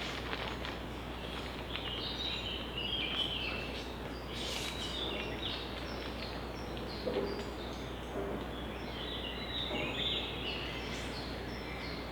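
Woodland ambience: small birds singing in two short spells of chirps over a steady hiss of background noise, with a few faint knocks.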